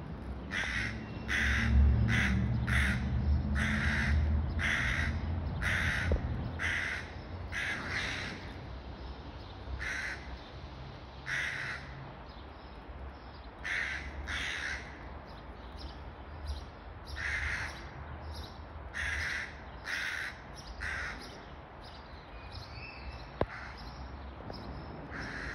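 Hooded crows giving short, harsh caws again and again, mobbing calls aimed at a cat. Under them a low rumble, loudest in the first half, and a single sharp click near the end.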